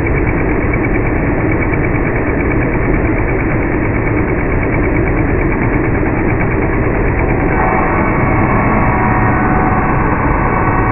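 Table saw with its blade tilted to 45° running steadily while mitering the edges of plywood pieces. Its tone changes about three-quarters of the way through.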